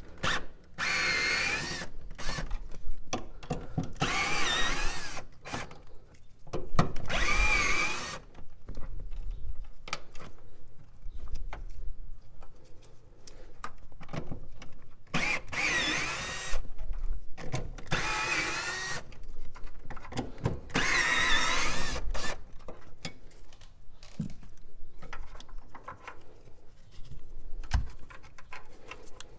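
Cordless drill-driver with a socket spinning off the nuts that hold down a fuel pump module cover, in about six short runs of a whine that rises and falls. Small clicks and rattles come between the runs and toward the end.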